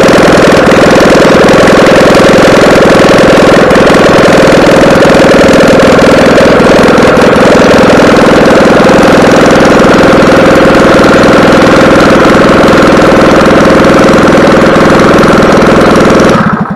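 Freshly rebuilt EZGO golf cart gas engine running steadily on a test stand during its break-in run, until it stops suddenly near the end.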